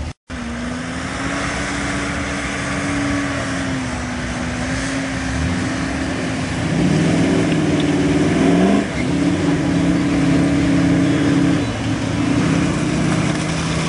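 Lifted mud truck's engine running steadily on huge mud tyres. About seven seconds in it revs up hard for a couple of seconds, the pitch rising and then falling back, before settling to a steady run again.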